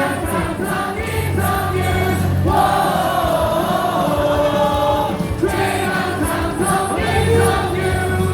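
Baseball crowd singing a cheer song together over loud music.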